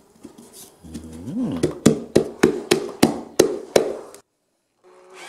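Sharp knocks, about eight of them at roughly three a second, as a wooden disc fitted with a steel plate is knocked into the end of a thick-walled steel pipe. They cut off suddenly near the end.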